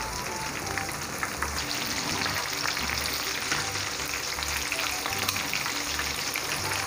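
Battered, cornflake-coated chicken wings deep-frying in hot oil in a wok: a steady, dense sizzle and crackle while metal tongs turn the pieces over in the oil.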